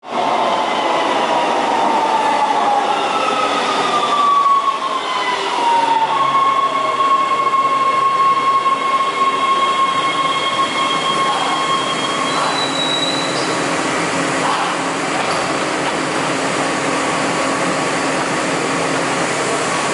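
Breda A650 subway train pulling into the underground station and slowing to a stop: a whine that falls in pitch over the first six seconds, then a steady high squeal until the train halts about twelve seconds in, followed by the steady hum of the stopped train.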